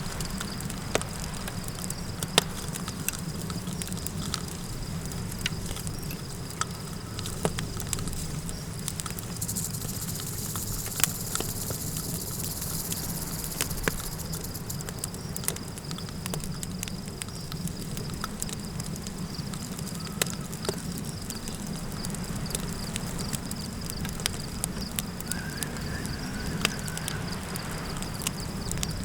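Campfire crackling with irregular sharp pops over a low, steady rumble of wind, and a steady high insect trill throughout. A brief rise in hiss comes about a third of the way in.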